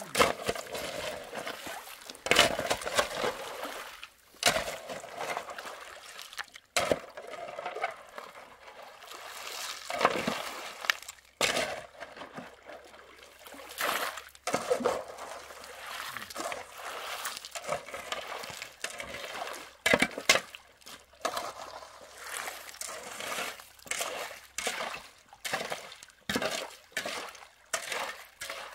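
Shovel scraping and digging into wet gravel and stones in a shallow stream, in irregular strokes about every second or two, with water trickling and splashing along the channel.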